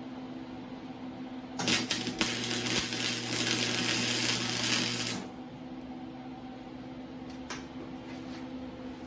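A welding arc on the steel exhaust flex pipe, crackling and hissing steadily for about three and a half seconds from a second and a half in, with a hum under it. A few sharp clicks come a couple of seconds after it stops.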